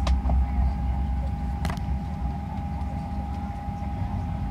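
Airliner cabin noise while taxiing: a steady low rumble with a constant thin whine over it, and two sharp clicks, one right at the start and one about a second and a half later.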